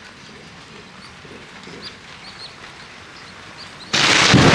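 Faint bird chirps over quiet outdoor air, then about four seconds in a sudden, very loud crack of thunder from a lightning strike close by.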